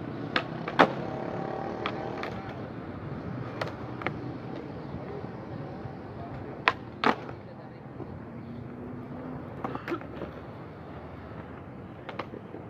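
Skateboard wheels rolling on smooth concrete, with sharp wooden board clacks from flatground trick attempts (tail pops and landings), often in quick pairs. The loudest clacks come about a second in and about seven seconds in.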